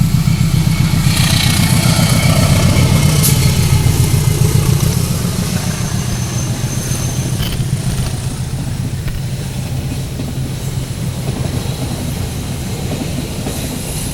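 Diesel-hauled passenger train passing close by: a low, even engine and rail rumble, loudest for the first five seconds and then easing to a steadier, quieter run.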